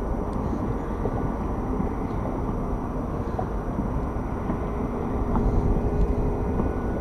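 Steady low rumble with a faint steady hum: open-air background noise aboard a small boat in a harbour.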